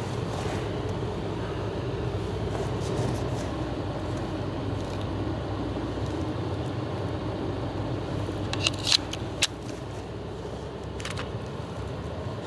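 Steady outdoor rumble of wind on the microphone, with a quick cluster of three or four sharp metallic clicks about three-quarters of the way through and one more near the end: handling of a Glock pistol and its magazine.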